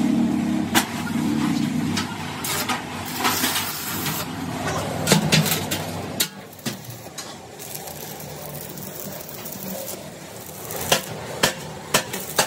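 Workshop machine noise: a steady low hum for about six seconds that cuts off suddenly, with scattered sharp knocks and clicks, several in quick succession near the end.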